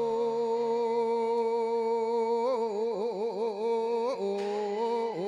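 A monk's voice chanting an Isan melodic sermon (thet lae): one long steady held note, then wavering ornaments about halfway through, settling on a lower held note near the end.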